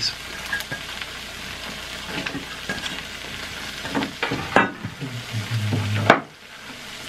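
Melted mozzarella sizzling on a hot electric griddle: a steady frying hiss, with a few brief clicks and rustles from food being handled. The hiss drops sharply just after six seconds in.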